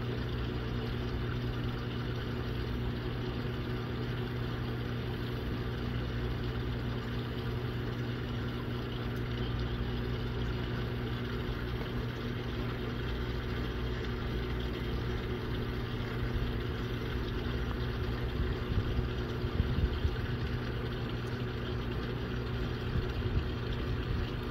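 Steady low hum of an idling vehicle engine, with wind gusting on the microphone for a few seconds about three-quarters of the way in.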